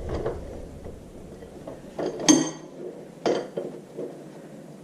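Steel hand tools clinking on metal: a 3/4-inch drive socket wrench working the bolts of a tractor's rear axle. There are a few light knocks, then two sharp ringing clinks about a second apart, the first just after two seconds in and the loudest.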